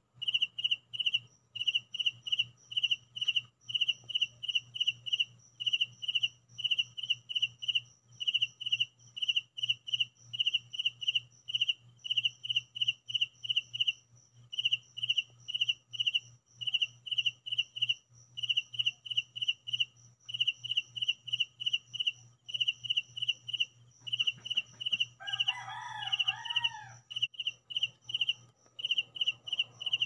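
Crickets chirping steadily: short, high-pitched chirps of a few quick pulses each, repeating at an even rate of roughly two a second. A brief, pitched call, likely a bird, cuts in for about a second and a half near the end, over a faint low hum.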